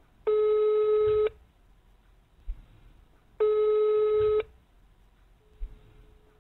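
Telephone ringback tone of an outgoing call ringing on the line: a single buzzy tone sounding for about a second, twice, about three seconds apart, with a short low knock between the rings.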